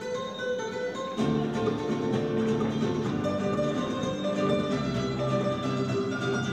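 Latin-style music with plucked guitar, playing for a dance and growing louder about a second in.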